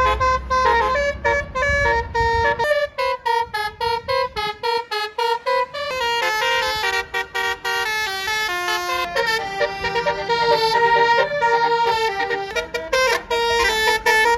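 Basuri telolet bus horn playing a tune of short, quickly changing notes, with longer held notes in the middle. A low rumble sits under the first couple of seconds.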